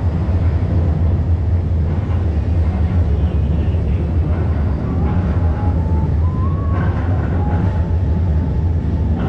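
Busy street ambience dominated by a steady low rumble, with a faint tone that steps up in pitch partway through.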